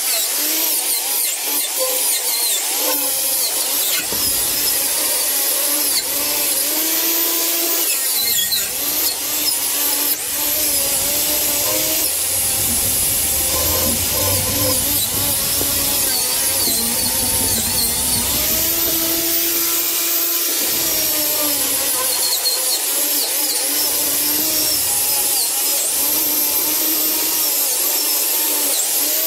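Electric angle grinder with an abrasive attachment running continuously against the rusty steel frame of an old trolley, stripping off rust and grime. It makes a loud, steady, hissing rasp, and the motor's pitch wavers as the tool is pressed into the metal and eased off.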